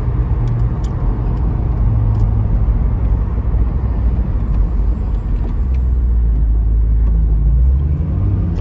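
Chevrolet Corvette C6's V8 engine and road noise heard from inside the cabin while cruising, a steady low rumble. Near the end the engine note starts to rise as the car accelerates.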